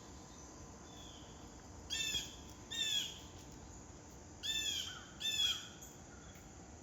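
Blue jay calling: two pairs of short, arching calls, the calls in each pair a little under a second apart, about 2 s and 4.5 s in.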